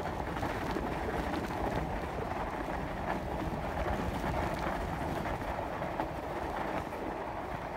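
Bicycle tyres rolling over a snow-covered trail: a steady rolling rumble with no breaks.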